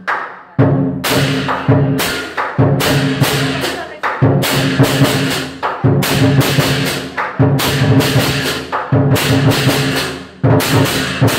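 Lion dance percussion: drum, clashing cymbals and gong struck together in a driving beat about twice a second, the cymbals and gong ringing between strokes, with a short break near the start and another near the end.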